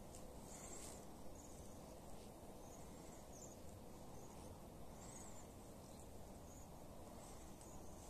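A flock of Bohemian waxwings calling: a scattering of faint, short, high trills, over a low steady background rumble.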